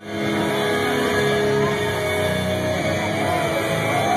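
Loud music over a concert sound system, with several long held notes and crowd noise underneath.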